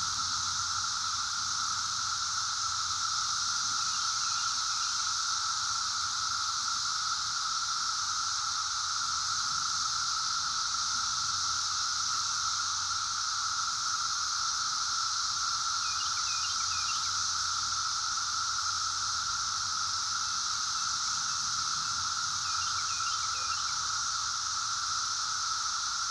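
Cicadas calling in a steady, unbroken high buzzing chorus, with a few brief faint chirps from another animal about 4, 16 and 23 seconds in.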